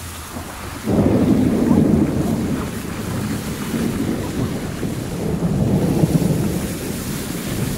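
Car driving through muddy floodwater on the road: a low, rumbling wash of water and tyre noise that starts suddenly about a second in and carries on steadily.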